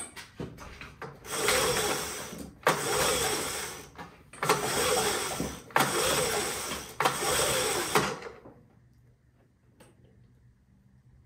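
Honda EU3000is inverter generator's recoil starter pulled about five times in quick succession, the engine turning over with each pull but not catching, after which it goes quiet. It is being hand-started because the electric-start battery is dead.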